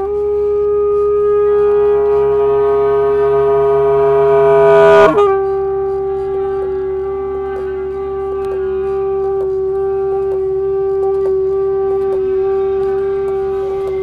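Saxophone holding one long, steady note. From about two seconds in, extra sliding tones build up around it and break off in a sudden crack about five seconds in, and the same note carries on unbroken.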